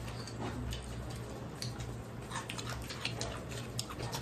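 Close-miked eating sounds: chewing and small wet mouth clicks, scattered irregularly, from people eating rice, pork and raw cucumber with their hands, over a steady low hum.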